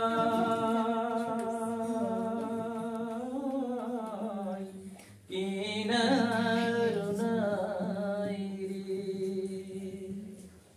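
A man singing a Bengali folk song unaccompanied, drawing out two long held notes with a short break about five seconds in; the pitch bends and wavers in places before the second note fades away.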